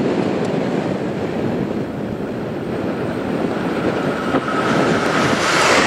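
JR Shikoku 8000 series electric express train approaching on the rails, its running noise growing louder near the end. A steady high whine rises out of it over the last couple of seconds.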